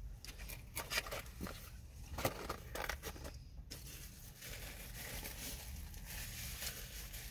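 Paper food wrappers and a paper bag crinkling and rustling in irregular bursts as the food is packed away, then a soft steady hiss for the last few seconds.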